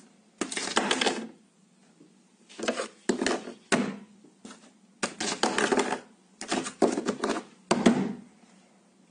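Bursts of clattering and scraping on a wooden desk, about six in all with short quiet gaps between them: the plastic cable-hole grommet cover and a sheet of paper being knocked and pushed about over the hole.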